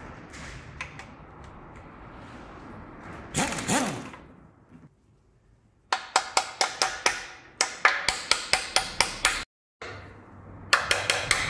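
Hammer rapidly tapping a thin flat tool into the seam of an engine's steel oil pan to break the stuck pan free: quick runs of sharp, ringing metallic taps, about five a second, starting about halfway through, with a short break before a second run near the end.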